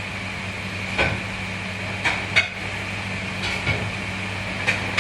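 Dishes and utensils clattering in about five separate knocks over a steady hum of kitchen machinery.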